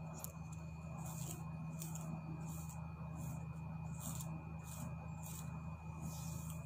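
A comb drawn again and again through long hair, a short swish with each stroke, over a steady low hum.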